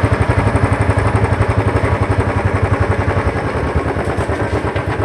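Motorcycle engine running at a steady speed, its firing pulses making an even beat that eases slightly in loudness toward the end.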